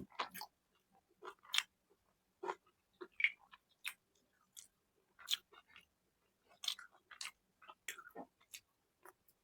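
Close-miked eating sounds: wet chewing and lip smacks come irregularly, a few to each second, with short quiet gaps between them.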